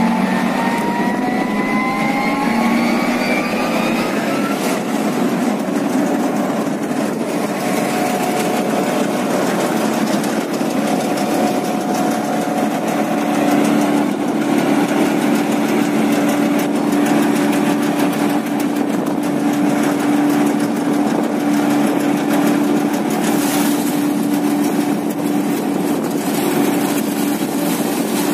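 Haybuster H-1130 electric tub grinder running, its 300 HP motor driving the hammer mill as it grinds hay: a loud, steady machine drone. A whine rises in pitch over the first few seconds, and a steady low hum grows stronger about halfway through.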